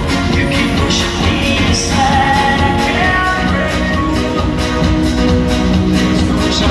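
Live dance-pop song over a concert PA, with a steady beat and singing, recorded from among the audience.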